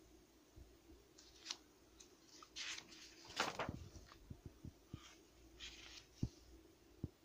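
Pages of a glossy picture book being turned and smoothed down by hand: a few soft paper swishes and light taps.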